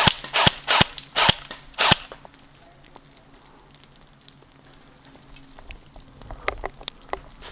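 Airsoft rifle firing five sharp single shots in about two seconds, followed by a few faint clicks near the end.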